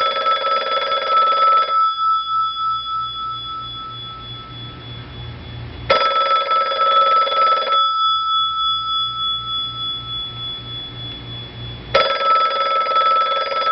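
Telephone ringing three times, each ring about two seconds long with about four seconds between rings, until it is answered.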